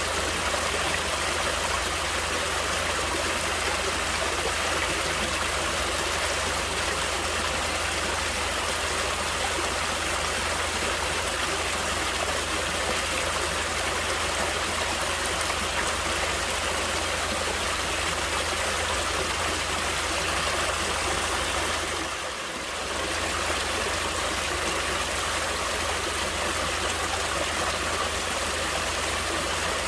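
Water flowing steadily in a stream, a constant rushing and trickling. It dips briefly quieter about three-quarters of the way through.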